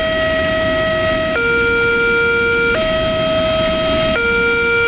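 Level crossing warning alarm sounding a steady two-tone signal, switching between a higher and a lower note about every second and a half, which warns that a train is on the crossing. Under it, the rolling rumble of container flat wagons passing over the crossing.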